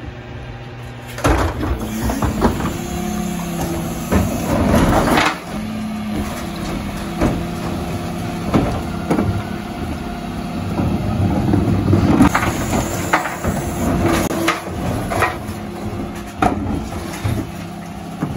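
Dennis Elite 6 bin lorry running with a steady mechanical hum while its Terberg bin lifters raise and tip blue wheelie bins of mixed recycling. Bins knock against the lifter and loose recycling clatters into the hopper in several separate bouts.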